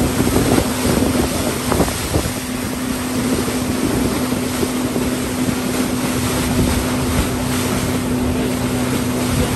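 Speedboat engine running steadily under way, a constant hum, with wind buffeting the microphone and water rushing and splashing along the hull.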